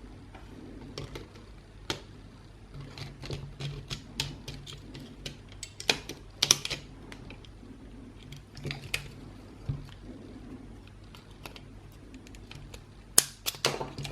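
Irregular small plastic clicks and taps of an Xbox One controller being taken apart by hand as a shoulder button is worked off, with the sharpest clicks about six seconds in and near the end.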